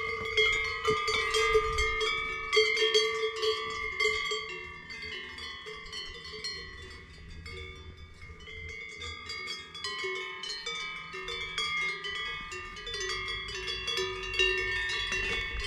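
Cowbells on grazing cows clanking at irregular moments, several bells of different pitches ringing over one another. They fade somewhat in the middle and grow louder again near the end.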